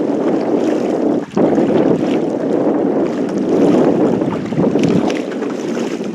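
Wind buffeting the microphone of a head-mounted camcorder, a loud rough rumble that dips sharply for a moment about a second in.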